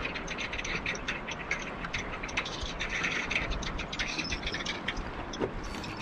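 Choppy lake water slapping against a boat hull in a strong wind: a dense, irregular patter of small splashes over a steady rush of noise.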